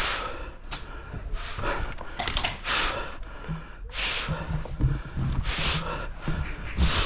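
Heavy breathing close to the microphone, a breath about every second and a half, with a few sharp clicks in between.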